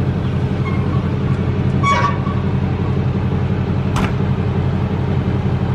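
A vehicle engine idling steadily, with a brief squeak about two seconds in and a sharp click about four seconds in.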